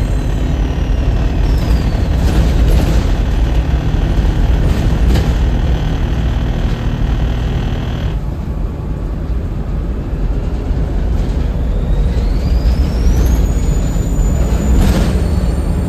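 Volvo B7RLE bus's diesel engine running under load with a turbocharger whistle: the whistle falls in pitch in the first two seconds, and from about eleven seconds in it rises steadily as the engine pulls. A few short knocks sound along the way.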